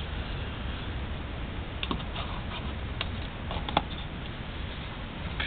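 Plastic oil jug and funnel being handled: a few light clicks and knocks, the sharpest a little under four seconds in, over a steady low background rumble.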